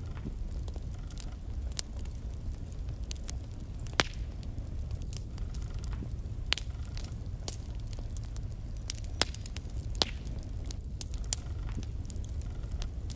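Logs burning in a fireplace, crackling with irregular sharp pops over a steady low rumble of the fire. The loudest pops come about four seconds in and again around nine and ten seconds.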